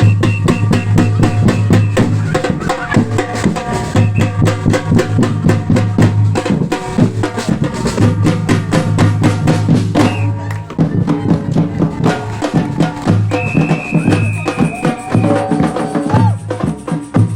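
A percussion band plays a fast, dense drum rhythm. Deep bass drums pound in repeated phrases of about two seconds under rapid high strikes. A long high steady note sounds for about two seconds, roughly two-thirds of the way in.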